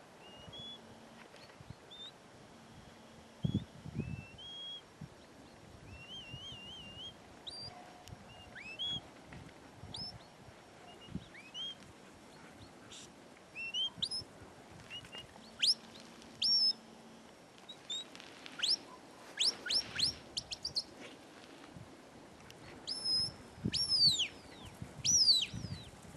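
Shepherd's whistle commands directing a sheepdog: a series of short high whistles, some rising, some sweeping sharply down, one warbling, coming faster and louder in the second half.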